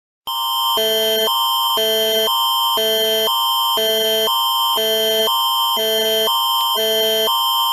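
Canadian Alert Ready attention signal: a higher chord and a lower chord swap about twice a second, with a thin high tone held steady under both. It starts abruptly a moment in.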